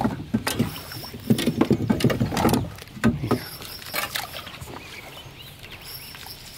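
A hooked fish being netted beside a small boat: irregular splashing and knocks against the hull, busiest in the first three seconds or so, then quieter.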